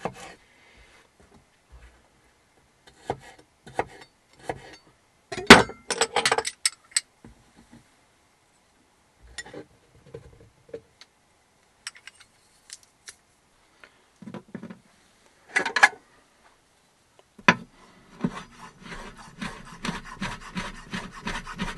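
Chef's knife working on a wooden cutting board: scattered knocks and scrapes, the loudest a sharp knock about five seconds in. Near the end, a fast, even run of chopping strokes, several a second, as the knife minces food on the board.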